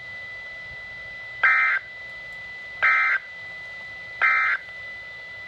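Three short buzzing electronic data bursts about a second and a half apart, over a low hiss with a faint steady high tone: the SAME digital end-of-message code that closes an Emergency Alert System weather warning broadcast.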